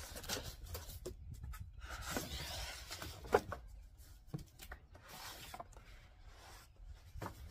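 Cardboard box flaps being pulled apart and folded back, with scraping and rustling of the cardboard and a few light knocks; the sharpest knock comes about three seconds in. A low rumble runs underneath.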